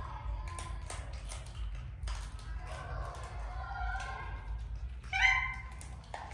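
Baby monkey's high-pitched calls: a few softer wavering ones, then one loud call about five seconds in, over light tapping and clicking.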